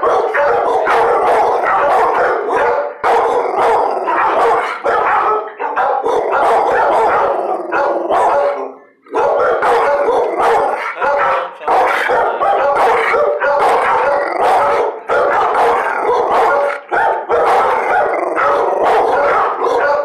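A dog barking and howling almost without a break, with a short pause about nine seconds in.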